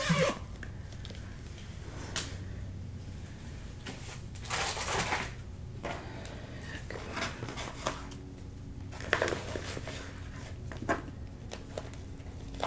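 Plastic floss bags and storage bins being handled: scattered rustles with a few light clicks and knocks, the longest rustle about five seconds in.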